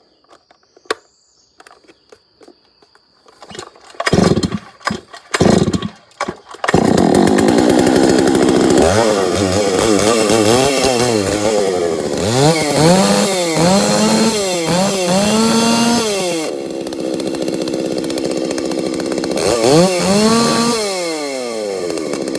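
Holzfforma G660 two-stroke chainsaw (a Stihl 066/660 clone) cold-started with the decompressor on: after a few quiet clicks it fires in several short bursts, then catches about seven seconds in and runs. It is blipped up and down several times, settles to a lower, steadier speed, is revved once more near the end, and then drops back toward idle.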